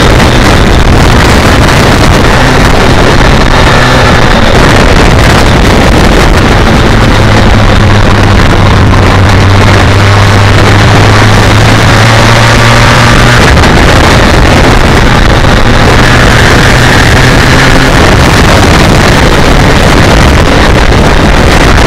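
BMW K1200R Sport's inline-four engine running steadily at cruising revs, with its hum rising a little around the middle, under heavy wind rush on the microphone.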